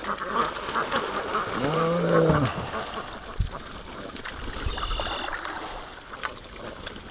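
Canoe paddle dipping and splashing in shallow creek water, with small knocks and drips. About two seconds in comes a short low voice-like sound that bends in pitch, and a dull thump follows a little later.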